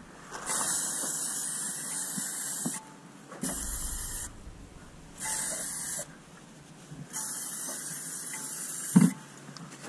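AMSOIL Mudslinger protectant sprayed from an aerosol can onto engine-bay plastics in four hissing bursts, the longest about two seconds. A short sharp knock comes near the end.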